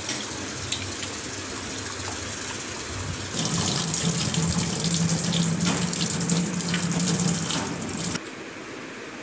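Tap water running into a steel vessel of raw chicken pieces as they are rinsed. The rush of water grows louder a little past three seconds in, with a low steady hum under it, and cuts off abruptly about a second before the end.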